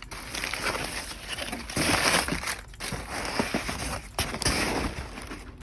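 Packing material crinkling and rustling in irregular bursts as a shipping box's packaging is handled.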